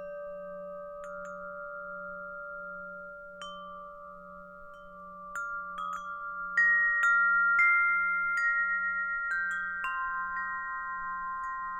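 Wind chimes (Gregorian alto tuned chimes) struck by their clapper at irregular moments, their bell-like notes ringing on and overlapping, sparse at first and fuller and louder from about halfway. Beneath them a faint low tone throbs about twice a second.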